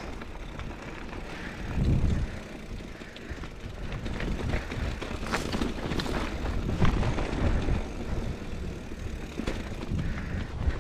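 Mountain bike rolling down a rocky dirt singletrack: Maxxis Dissector tyres crunching over dirt and loose rock, with sharp clicks and rattles from the bike over the bumps. Wind rumbles on the camera microphone, swelling louder about two seconds in.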